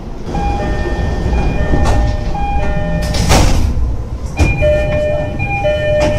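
Japanese commuter train doors: a repeating two-note electronic door chime over the low rumble of the train. A short burst of hissing from the door mechanism comes about three seconds in and again just after four seconds.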